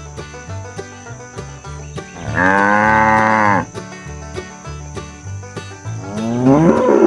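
A cow mooing: one long moo a little over two seconds in, then a second call with a rising pitch starting near the end. Background music runs underneath.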